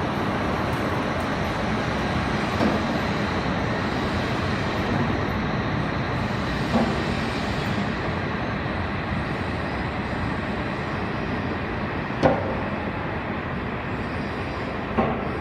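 E6 series Shinkansen train pulling out, a steady running noise that slowly fades, broken by a few single clunks, the loudest about twelve seconds in.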